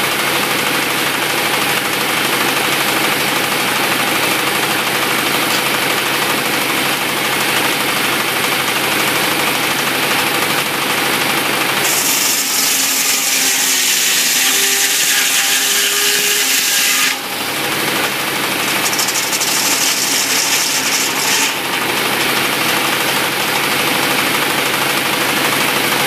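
Sawmill running: a steady engine drone with a hiss over it. Near the middle the sound turns brighter and sharper for about five seconds, then briefly again a little later.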